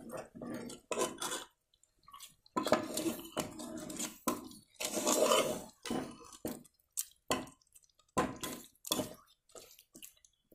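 Steel ladle stirring watery mutton masala in a pressure cooker: irregular scrapes and clinks of the ladle against the pot, with the wet sound of the masala being churned.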